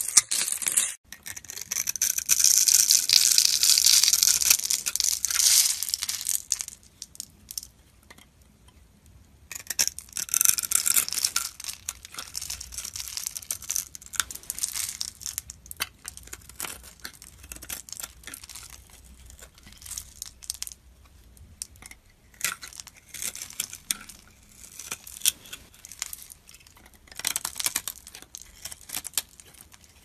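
Dry bar soap cut with a snap-off utility-knife blade: crisp crunching and crackling as small pre-scored cubes and crumbs break away. It comes in long dense runs in the first half, then short separate scraping strokes.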